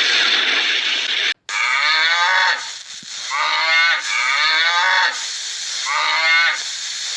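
Cattle mooing repeatedly: about five drawn-out calls, each dropping in pitch at its end. Before them, a steady hiss cuts off suddenly.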